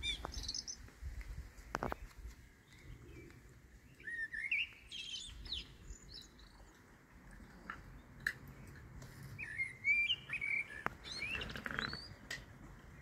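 Songbirds chirping and warbling in short, varied phrases, with a few short clicks in between.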